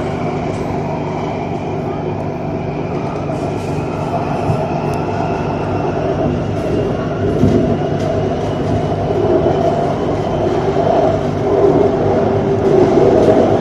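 BTS Skytrain car running along the elevated track, heard from inside the car: a steady mechanical hum with running noise and a faint whine that slowly rises in pitch. The sound grows louder near the end.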